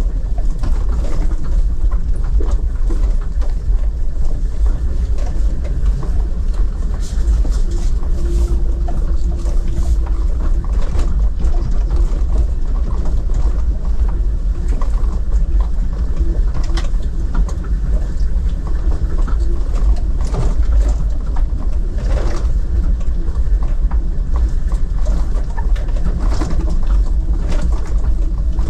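Steady low rumble of a car running along a road, heard from inside the cabin, with faint droning tones coming and going and small rattles.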